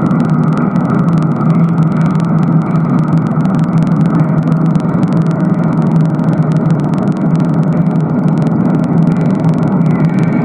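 Radio noise: a steady, loud wash of static and interference with a strong low hum and constant fine crackle.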